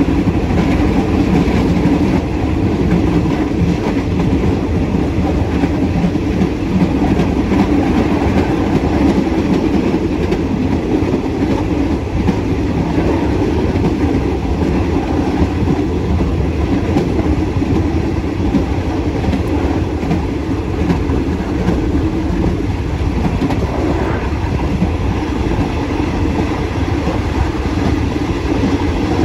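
Passenger train running along the track, heard from its rear carriage: a steady, loud rumble of wheels on rails and the carriage running.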